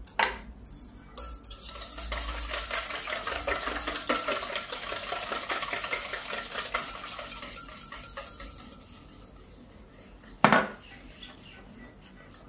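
Wire whisk beating an egg, oil and milk mixture in a stainless steel bowl: fast, continuous clinking and scraping of metal on metal that slows and fades after about eight seconds. A single sharp knock comes near the end.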